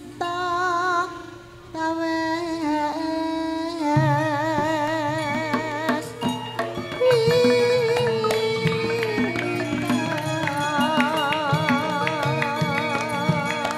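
Javanese gamelan (karawitan) ensemble playing a classical gending: struck metallophone notes under a wavering, vibrato-laden sung melody, with a steady low tone entering about four seconds in.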